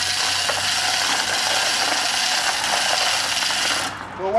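Manual chain hoist hauled by its hand chain to lift a heavy gearbox: the pawl ratchets and the chain rattles steadily through the block. It cuts off abruptly near the end.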